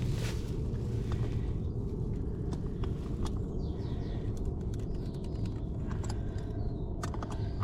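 Steady low outdoor rumble with scattered light clicks and taps as plastic pipe-fitting parts are handled and tightened.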